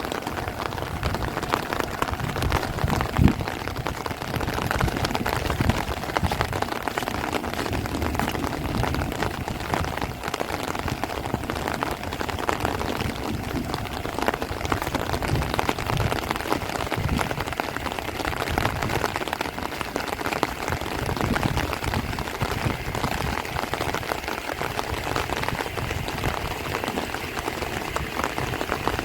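Heavy rain falling steadily on rice plants and trees, a dense hiss of countless drops with low gusts of wind rumbling underneath and a single low thump about three seconds in.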